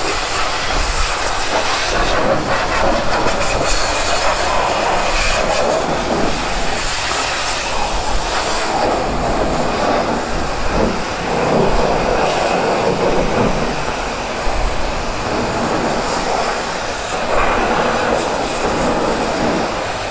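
High-pressure spray wand at a self-serve car wash blasting water onto a motorcycle. It makes a loud, continuous hiss and spatter that swells and eases as the spray moves over different parts of the bike.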